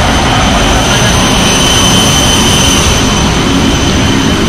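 Loud, steady jet turbine noise on an airport apron: a constant rumble and hiss with a steady high-pitched whine over it.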